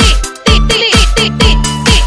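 Electronic dance remix playing without vocals: a heavy kick drum about twice a second under sustained bass and a bright synth melody.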